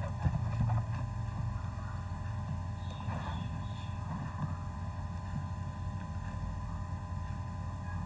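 Steady low hum of background noise, with a few faint brief sounds about three to four and a half seconds in.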